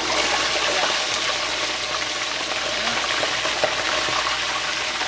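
Chicken leg quarters just put into very hot oil, sizzling and frying: a loud, steady hiss with scattered small crackling pops.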